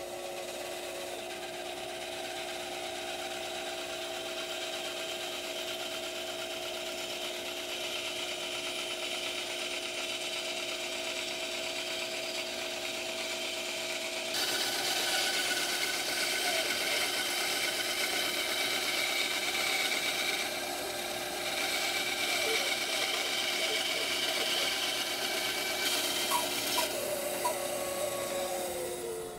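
Bandsaw running and cutting a curve through a thick walnut glue-up: a steady motor hum under the hiss of the blade in the wood. Near the end the hum drops in pitch as the saw slows.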